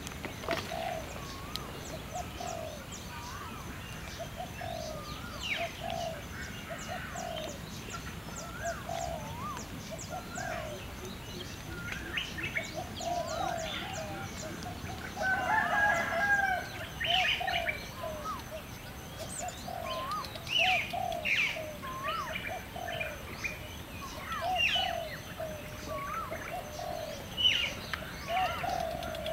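Birds calling and chirping. A short call repeats about once or twice a second under high chirps, and a louder fowl call like a rooster's crow comes about halfway through.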